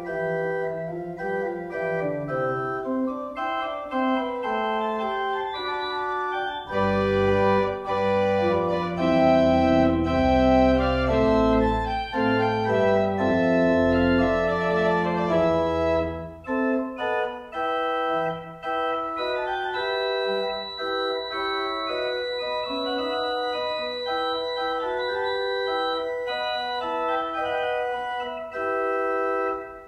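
Organ music played on a two-manual organ, sustained chords and a moving melody. Deep bass notes come in about a quarter of the way through and drop out about halfway.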